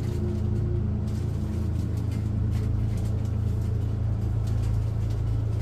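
Steady low mechanical hum at an even level, with a few faint light clicks from handling.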